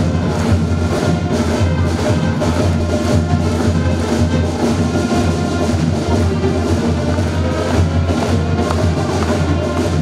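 A school pep band plays: brass and drums with a steady beat and a strong bass line.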